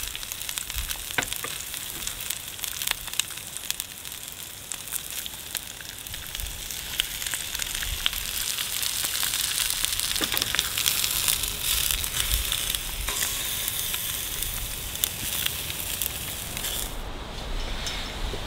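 Eggs frying on a hot griddle plate over a gas burner: a steady sizzle with many small pops. The sizzle grows louder about halfway through as fresh spinach goes onto the hot plate, then stops near the end.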